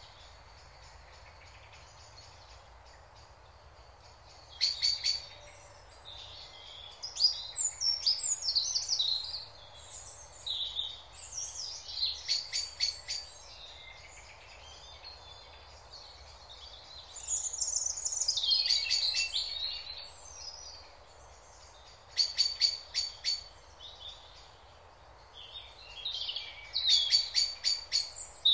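Songbirds chirping and trilling in several bursts of a few seconds each, with quieter gaps between them.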